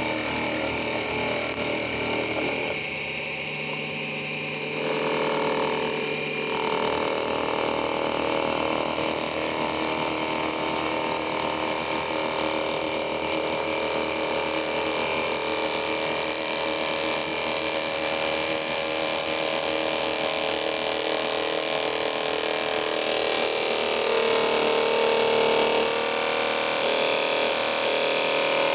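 Small motor of a mini metal lathe (model ZRCC01036) running steadily with its chuck spinning, the lathe tool turning a wooden dowel. The sound swells a little a few seconds in and again near the end.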